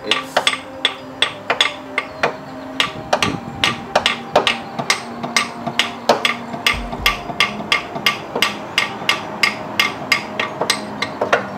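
Rapid hammer blows, about three a second, striking the stuck water pump of a Nissan 3.5 engine to knock it loose. Each strike is a sharp metal-on-metal hit with a faint ringing after it.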